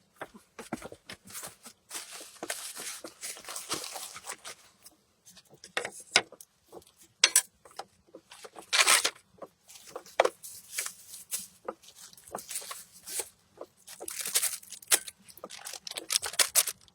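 Irregular rustling, crinkling and light clicks of things being handled, in short uneven bursts.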